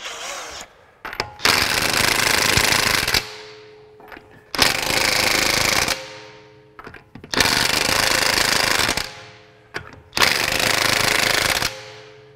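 Craftsman V20 brushless 1/2-inch high-torque impact wrench (CMCF940M1) hammering lug nuts tight on mode 2: four bursts of rapid impacting, each about a second and a half long, with the motor winding down after each trigger release.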